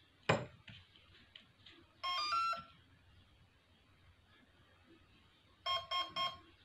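A sharp click, then electronic beep tones played through a brushless drone motor by its speed controller (ESC): a quick run of stepped notes about two seconds in, and three short beeps near the end, the usual ESC power-up and arming tones.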